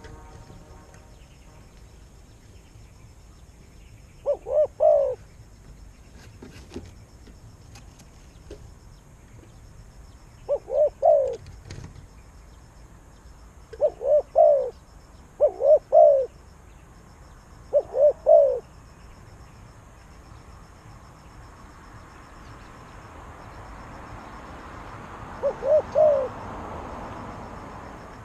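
A dove cooing: six short calls, each of two or three quick notes, spaced several seconds apart. A soft rushing noise swells in over the last few seconds.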